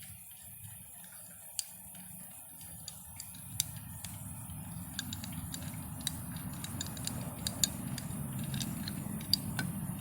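Light clicks and rattles of a new toilet flush handle and its mounting nut being handled as the nut is unscrewed, over a low steady rumble that grows slightly louder.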